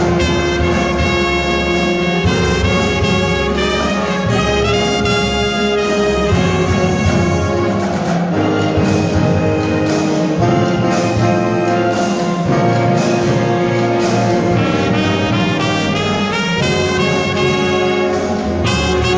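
Marching band playing a brass-led tune, with trumpets and trombones over steady percussion hits.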